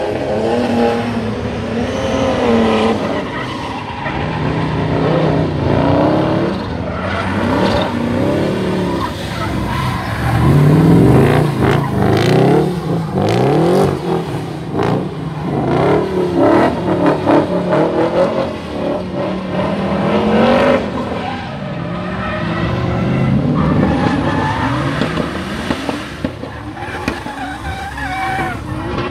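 Drift cars revving hard as they slide sideways on wet asphalt, engine pitch rising and falling over and over, with tyres skidding and squealing. A few sharp cracks come through in the middle.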